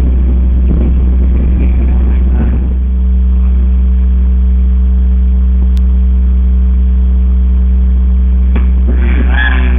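A loud, steady low hum with a constant drone, which firms into two steady tones about three seconds in. Indistinct voices are heard at the start and again near the end.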